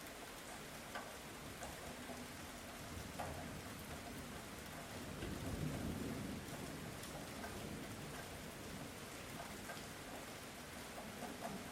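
Light rain falling steadily, with individual drops pattering close by, and a low rumble of distant thunder swelling and fading about halfway through.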